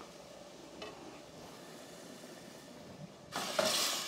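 Green curry paste and onions sizzling in a hot stockpot as coconut milk is added. The sizzling is low at first, then a louder rush of sizzling and hiss comes in for the last second.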